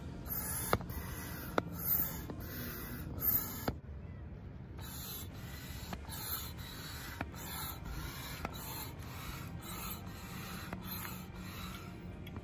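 Hand-operated plastic barrel air pump being worked in quick strokes, a rasping rush of air through the hose on each stroke, about two strokes a second. The pumping pauses briefly about four seconds in, then carries on.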